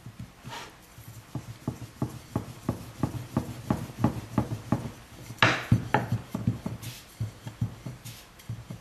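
Thin wooden rolling pin rolling out a dough disc on a round wooden board, making a quick, even run of light wooden knocks, about three a second, with one louder scrape a little past halfway.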